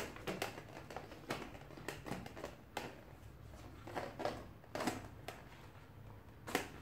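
Irregular light clicks and knocks of a plastic twist-mop handle and mop head being handled.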